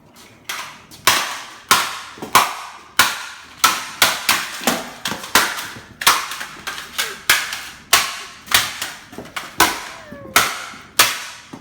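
A rapid run of about twenty loud, sharp bangs, roughly one to two a second, each with a short ringing tail: something being struck or shot over and over to silence a chirping smoke detector.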